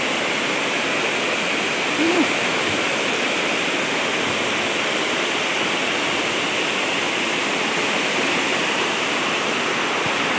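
Swollen, muddy river in flood rushing fast over and around boulders, a steady rushing of water mixed with heavy rain falling on the water.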